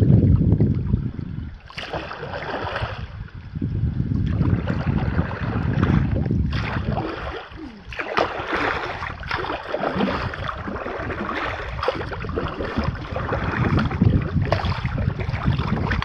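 Wind rumbling on the microphone over water splashing and sloshing around a kayak being paddled in to shore, rising and falling unevenly.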